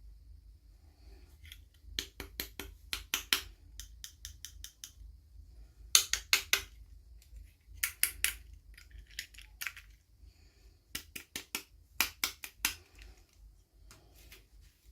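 Small plastic toy pieces and packaging being handled during an unboxing: clusters of quick, sharp clicks and crackles, four or five at a time, several times over, with quieter rustling between.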